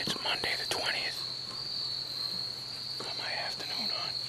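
Steady, high-pitched insect chorus of crickets trilling without a break, with a few faint clicks and rustles near the start and again about three seconds in.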